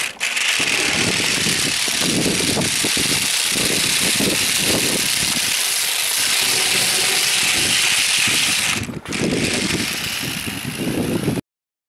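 Dual-motor toy RC rock crawler's small electric motors and gearboxes whirring as it drives. The sound breaks off briefly twice and stops suddenly near the end.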